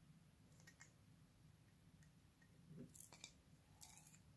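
Near silence with a few faint sticky clicks and crackles from glossy slime being peeled up by hand, clustered around the middle and near the end.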